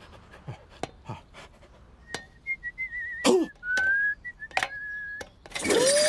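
A cartoon character whistling a wavering tune while climbing a ladder, with light taps of hands and feet on the rungs before the whistling starts. A short vocal grunt breaks the whistling once, and a loud burst of noise with a voice comes near the end.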